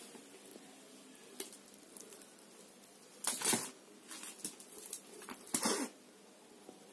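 Beads of a beaded string decoration clattering and clicking as it is shaken and dragged across a bedsheet, with two louder bursts and lighter clicks between.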